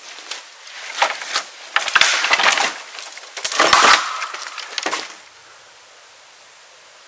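A standing dead tree cracking and splintering as its dry wood gives way: a few seconds of loud crackling snaps that stop about five seconds in.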